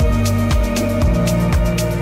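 Background music: an electronic track with a steady kick-drum beat, about two beats a second, over hi-hat ticks and held synth notes.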